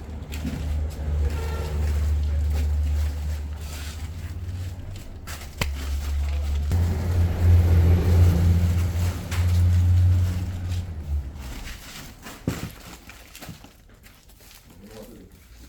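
A motor vehicle's engine running with a low rumble that rises and falls, dying away about eleven seconds in, with a couple of sharp knocks.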